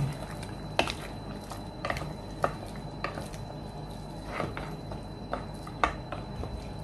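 Wooden spoon stirring a thick beef stew in a nonstick pot: irregular knocks and scrapes of the spoon against the pot, roughly one a second, over a steady low hum.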